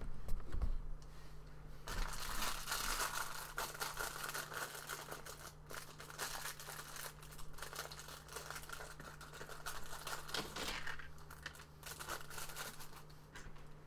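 Small clear plastic bag of Lego pieces crinkling and tearing open in the hands, starting about two seconds in and running for several seconds, with small plastic pieces clicking as they are tipped out onto cardboard.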